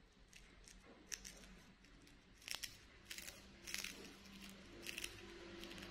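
A small monkey eating: a few faint, scattered crunching clicks of chewing and biting, over a faint steady hum.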